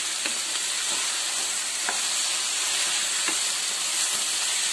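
Tomatoes, mint, coriander and green chilli frying in ghee and oil in a pan, a steady sizzle, with a spatula stirring through them and clicking against the pan a few times.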